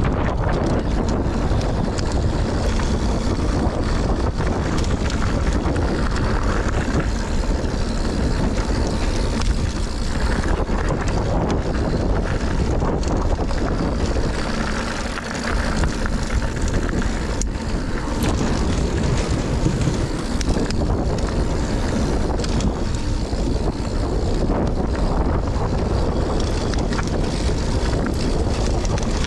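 Wind rushing over the action camera's microphone and the tyres of a Scott Ransom 910 mountain bike rumbling down a dirt trail at speed, with scattered light clicks and rattles from the bike over bumps.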